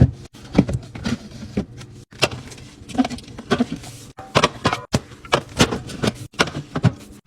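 Rapid clinks and knocks of drink cans and bottles being handled and set down during restocking, a few every second, some ringing briefly, broken by abrupt cuts.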